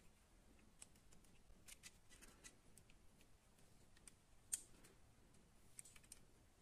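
Near silence with faint scattered clicks and taps of fingers handling a small die-cast model motorcycle, one sharper click about four and a half seconds in.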